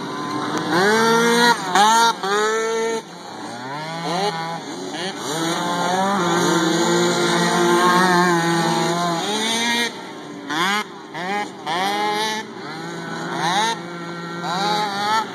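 Several mini quad (small youth ATV) engines racing, their pitch rising and falling over and over as the riders accelerate and let off the throttle. The engines overlap one another.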